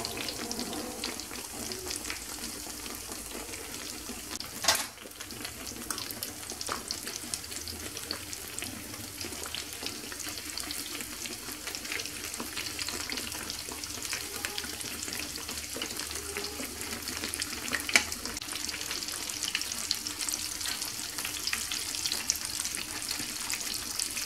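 Apple beignets frying in shallow oil in a frying pan over medium heat: a steady crackling sizzle. Two sharp clicks stand out, about five seconds in and near eighteen seconds.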